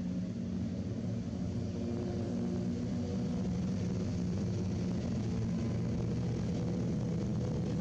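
Steady engine drone, growing louder over the first few seconds and then holding.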